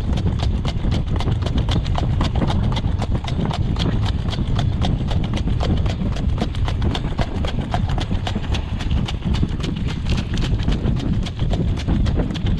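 Harness horse trotting on a gravel road behind a jog cart: a quick, steady beat of hoofbeats, with a steady low rumble underneath.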